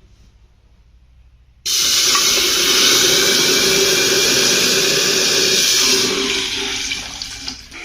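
Water pouring into an electric kettle's jug. It starts suddenly about two seconds in, runs steadily, and tails off near the end.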